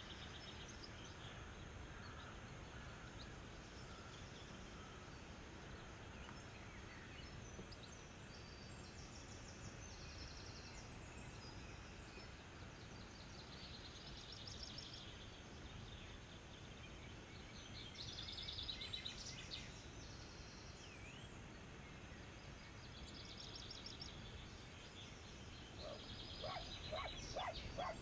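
Countryside ambience heard from a moving bike: a steady low wind rumble, with small birds singing quick high trills on and off. Near the end a run of short, sharp animal calls starts up.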